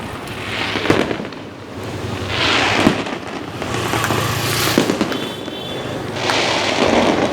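Fireworks going off: four crackling, hissing bursts about a second or two apart, with a few sharp pops among them.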